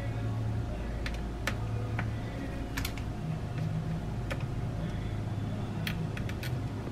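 Irregular sharp clicks and taps of small tools and parts on a mid-2012 MacBook Pro being taken apart, about ten in all, over a steady low hum.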